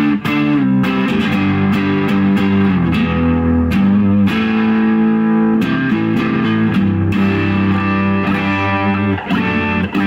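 Stratocaster electric guitar played through a Laney LF60-112 Lionheart Foundry analog combo amp on its lead channel with the bright switch on, giving a low-gain overdriven tone. Sustained chords and single notes are played, some gliding in pitch.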